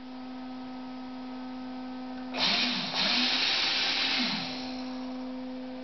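Electric ducted fan (50 mm EDF) on a homemade foam RC boat: a steady hum, then a little over two seconds in it throttles up into a loud rushing whoosh of air for about two seconds before easing back down.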